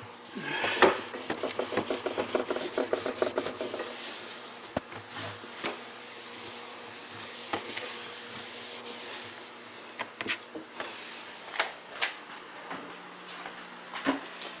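Wiping and scrubbing the inside of a refrigerator, quick back-and-forth rubbing strokes for the first few seconds, then scattered knocks and clicks as things are moved about.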